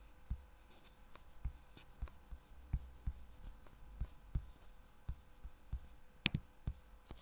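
Faint, irregular taps and knocks, with one sharper click about six seconds in.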